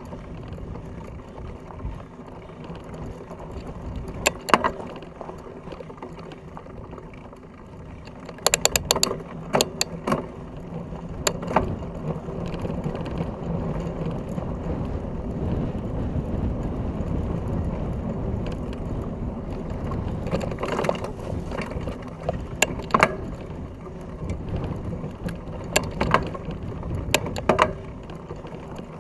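Fat bike ridden over a rough, stony dirt track, heard from a camera mounted on the bike: a steady low rumble of the tyres and frame that gets louder about a third of the way in. Sharp rattling knocks come as it bounces over stones, in clusters several times.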